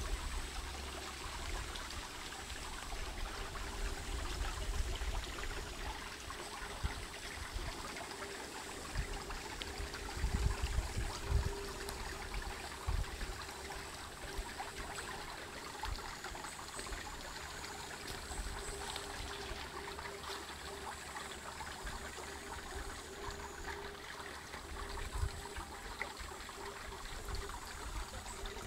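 The Rabnitz, a small stream, flowing and trickling steadily over its bed, with a few brief low rumbles, the loudest around ten seconds in.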